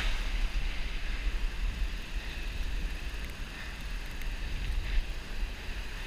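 Steady wind noise on the microphone over the hiss of white water from breaking surf rushing around a stand-up paddleboard.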